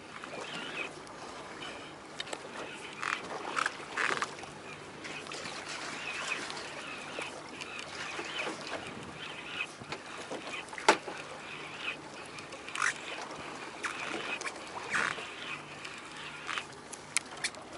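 Baitcasting reel cranked by hand in jigging turns, over a steady wash of wind and sea water around a small boat, with several sharp clicks, the loudest about eleven seconds in.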